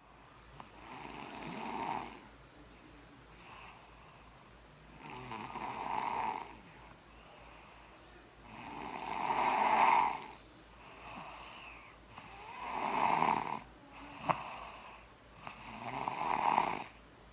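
A child snoring: five long snores, one about every three and a half to four seconds, each building up and then dropping away. There is a single sharp click late on.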